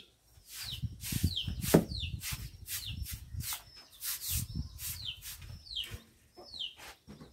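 A stiff broom scrubbing a wet floor in quick repeated strokes, while chickens give short high calls, each falling in pitch, over and over.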